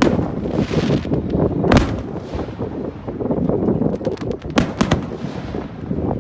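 Fireworks display: a dense, continuous rumble of shells bursting, with sharp cracking reports about two seconds in and a quick cluster of them around five seconds in, and a hissing fizz between the bangs.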